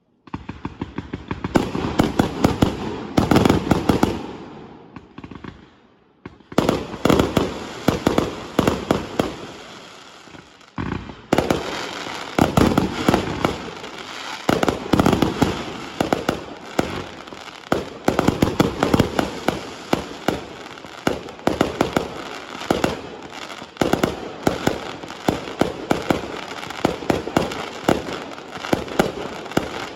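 Fireworks going off in rapid, dense strings of bangs and crackles. The firing pauses briefly about six seconds in and again about eleven seconds in, then runs on without a break.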